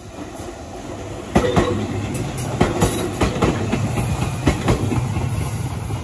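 Gakunan Railway electric train passing close by: a low rumble that swells about a second in, with a run of sharp clacks as its wheels cross the rail joints.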